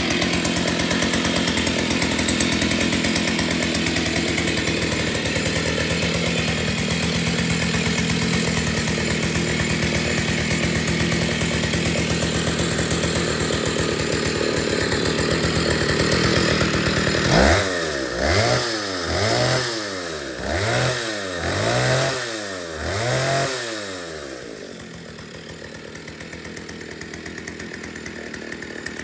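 Stihl 08 two-stroke chainsaw running steadily, then revved up and down about six times in quick succession before dropping back to a quieter idle near the end.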